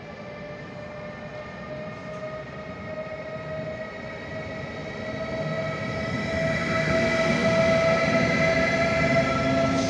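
Siemens Vectron class 193 electric locomotive moving slowly past at the head of a passenger train. Its traction converters give a whine of several steady tones, with a low running rumble beneath, growing louder and peaking as the locomotive draws level about seven seconds in.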